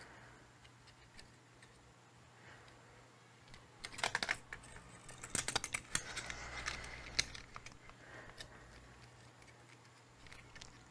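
Small plastic clicks and rattles from a PS4 controller being handled: a short cluster of clicks about four seconds in, then a longer run of clicking over the next couple of seconds, like keys being typed on.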